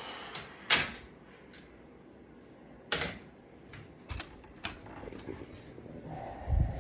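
Scattered sharp clicks and taps of a box cutter and the iPad being handled on a work surface, with a low thump near the end. A heat gun's steady hiss dies away at the start.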